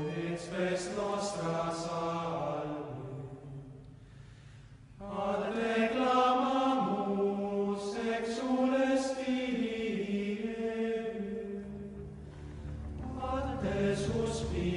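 Slow vocal chant as background music: a voice holding long, gliding notes in phrases over a low steady drone. It fades away about four seconds in and comes back a second later.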